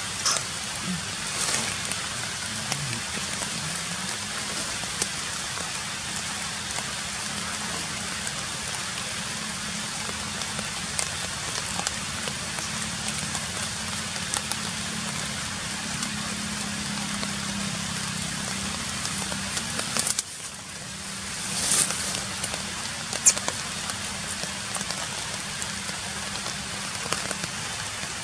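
Steady noisy hiss with scattered crackles and clicks over a low steady hum, dipping briefly about twenty seconds in.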